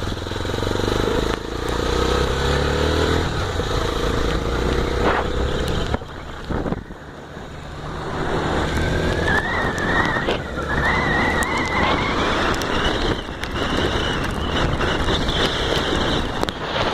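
Honda XR250 Tornado's single-cylinder engine under way: the pitch sinks as it slows and the sound drops for a moment, then it picks up again in a rising whine with a break partway, as when shifting up a gear.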